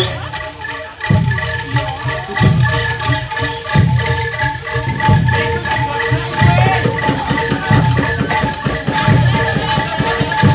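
Live Javanese jaranan ensemble music: a low drum or gong beat repeats a little over once a second under steady held melody notes, with rattling percussion.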